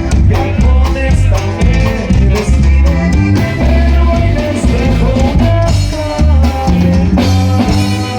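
Norteño band music with a steady beat and a bass line, an instrumental passage of a corrido.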